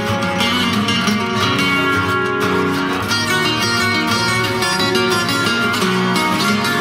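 Instrumental passage of a song, led by guitar, with no singing.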